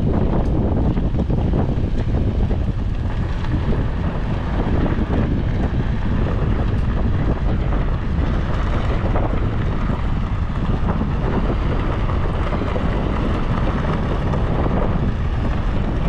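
Vehicle driving, a steady low rumble of road and engine noise with wind buffeting the microphone.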